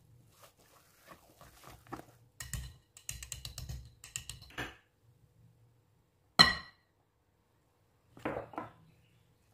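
Kitchen utensils and dishes knocking together: scattered light knocks and scrapes, and one sharp, ringing clink a little past six seconds in.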